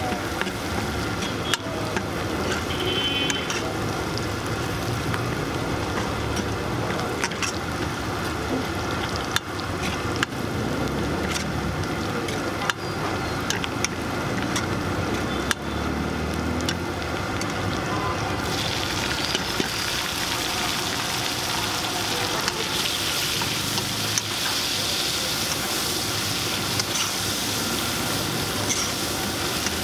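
Sliced shallots and garlic sizzling in oil in a pot, stirred with a ladle that clicks and scrapes against the pot now and then. About two-thirds of the way in the sizzle turns hissier and stays so.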